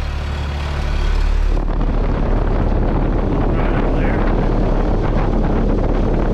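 York air conditioner's outdoor condenser unit running: a steady low hum, then from about a second and a half in a louder steady rush of air from the condenser fan. The fan motor is drawing about 0.78 amps, below its 0.8 rating, so it is not over-amping.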